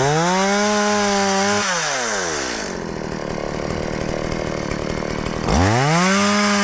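Chainsaw revved to full throttle twice: the pitch rises fast and holds high for about two seconds, falls back to idle, then rises and holds again near the end.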